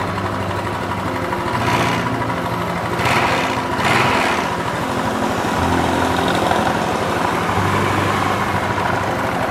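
Yamaha Mio Sporty scooter's small single-cylinder four-stroke engine idling steadily, with brief noisy bursts about two and three to four seconds in. It is running with its burnt voltage regulator-rectifier bypassed, the ignition fed from the battery alone.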